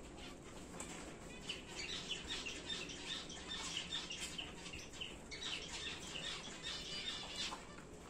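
Caged finches chirping in a quick run of many short, high notes. The notes start about one and a half seconds in and thin out near the end.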